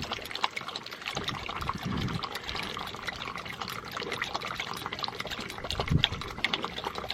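Water trickling and splashing, with many small irregular splashes and clicks.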